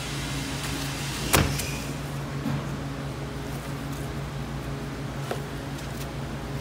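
Butcher's knife and hands working beef on a plastic cutting board: a sharp knock about a second and a half in and a few faint clicks, over a steady low machine hum.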